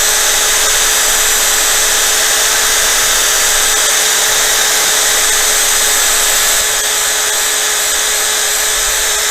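Electric drill spinning a polishing pad over a plastic motorcycle windscreen. It gives a steady whir that eases slightly about two thirds of the way through.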